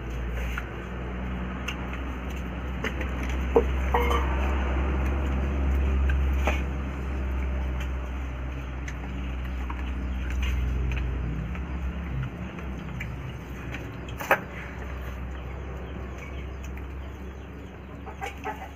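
People eating by hand from steel plates: rice and meat being handled and chewed, with a few sharp clicks of dishes and glasses. A low steady rumble underlies it and eases off about eleven seconds in.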